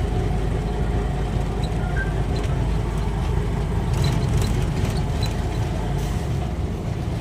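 Steady low rumble of a running vehicle, with a few faint high ticks.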